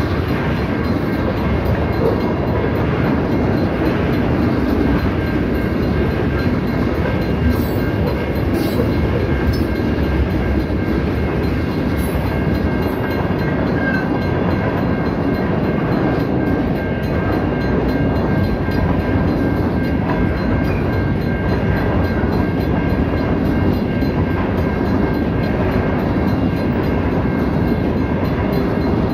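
Freight cars of a Norfolk Southern train rolling past: a steady rumble and clatter of steel wheels on the rails, unbroken throughout.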